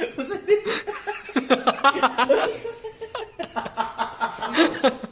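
People laughing, with some talk mixed in.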